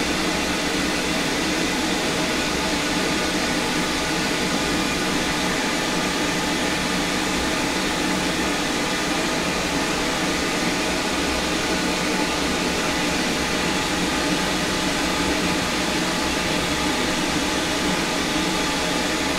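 Steady machine noise: a continuous whir and hiss with several steady hum tones, unchanging throughout.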